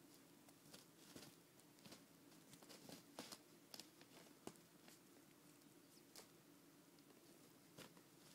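Faint scattered scratches and soft taps of a kitten's paws and claws on a shaggy rug and a striped cloth as it plays and pounces, over a low steady hum.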